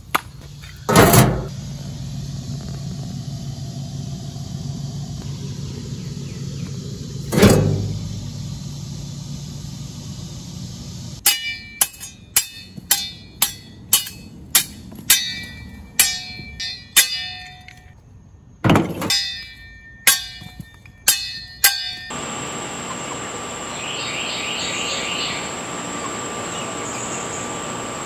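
Two heavy thuds of salvaged bricks landing, then a run of about twenty sharp metallic clinks as a steel hammer strikes a salvaged brick held in the hand, each clink ringing briefly. A steady high insect drone takes over near the end.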